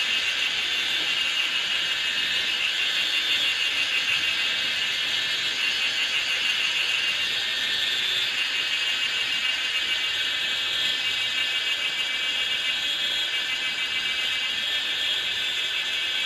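A steady, high-pitched buzzing drone with a fast trill in it.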